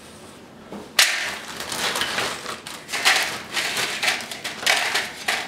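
A plastic zip-top bag crinkling and homemade tortilla chips rustling as handfuls are pulled out and laid in an aluminium pie tin, starting suddenly about a second in and going on in uneven bursts.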